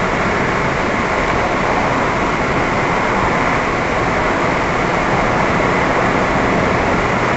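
Steady driving noise from a moving car: an even rush of road and wind noise with no changes.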